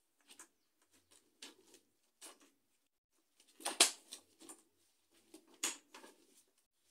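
Plastic connectors and panels of a DIY cube cabinet being handled and fitted together by hand: scattered light clicks and rattles, with a loud sharp click a little under four seconds in and another near six seconds.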